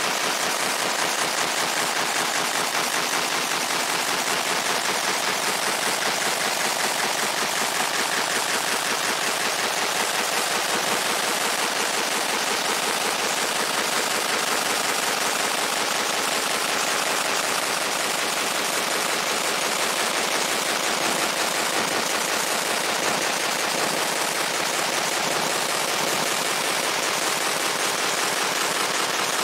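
Fiber laser engraving the steel head of a sledgehammer: a steady, rapid crackle as the pulsed beam scans across the metal.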